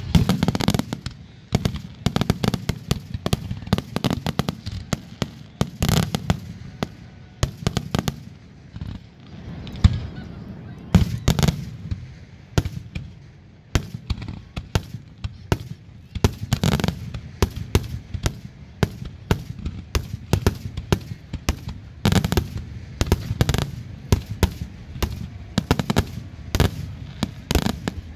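Aerial fireworks shells bursting in a rapid, continuous finale barrage: dozens of sharp bangs following close on one another over a low rumble.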